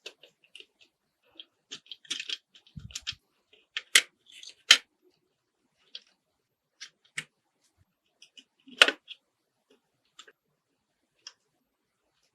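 Small parts and hand tools of a 1:24 scale model car being handled at close range: scattered light clicks and taps. Sharper clacks come about 4 seconds in, just under 5 seconds in and about 9 seconds in.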